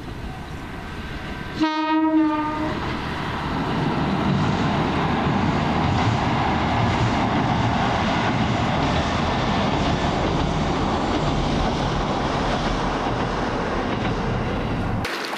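Train running noise, then about a second and a half in a short single-pitch train horn blast. A train then passes close with a loud, steady rush of wheels on rail that lasts over ten seconds.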